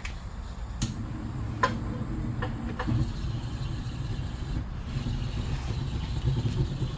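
Handheld gas torch lit with a click about a second in, then running with a steady low rush of flame, used to heat the wood stove's heat-resistant glass door before lighting the fire. A few more sharp clicks follow in the next two seconds.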